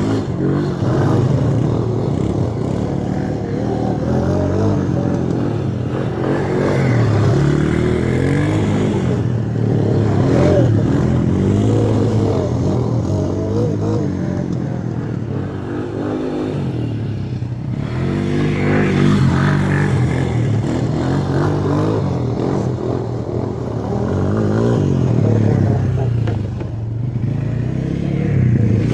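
Quad (ATV) engine being ridden, revving up and easing off again and again, its pitch rising and falling every few seconds.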